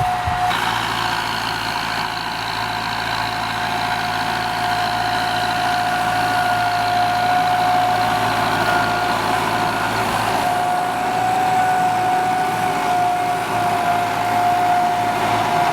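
Kubota M9540 tractor's diesel engine running steadily, with a steady high whine over the engine note; the low rumble eases a little about ten seconds in.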